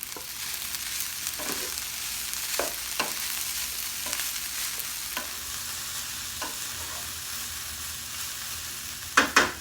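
Fried rice sizzling in oil in a hot non-stick skillet as it is stirred and turned, with a steady hiss and scattered light scraping clicks. Two sharp knocks near the end.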